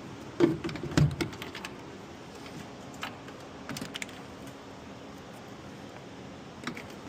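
Sharp clicks and knocks of car door trim parts being worked loose by hand, bunched in the first second or so, then a few scattered single clicks.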